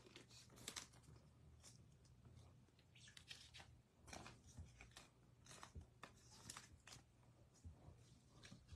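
Near silence, with faint rustles and soft clicks of baseball trading cards being handled and slid through a pack.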